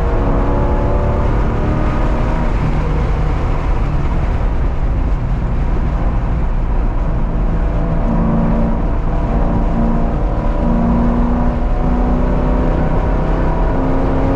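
Car engine pulling hard at track speed, its pitch climbing and dropping with the throttle and gear changes, over a steady low rush of noise.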